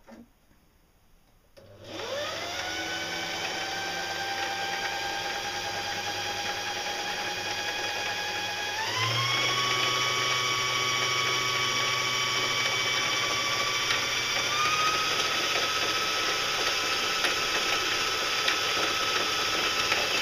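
Electric sewing machine motor running the bobbin winder with the needle disengaged, winding thread onto the bobbin. It starts about two seconds in with a quick rising whine, then runs steadily, speeding up in two steps as the foot pedal is pressed harder, about midway and again near three-quarters through.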